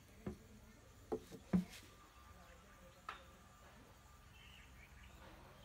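A few sharp clicks and knocks, about five in the first three seconds or so, the loudest about one and a half seconds in: small tools and electronic parts being handled on a workbench.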